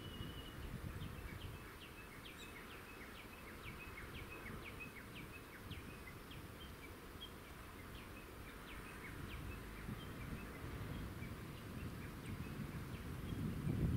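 Small birds chirping in many quick short notes, dense for the first ten seconds or so and thinning after, over a steady low outdoor background noise that grows louder near the end.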